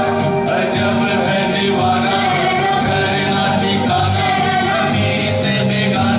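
A Bangla Adhunik or Hindi song performed live: singing over instrumental accompaniment with a steady percussion beat.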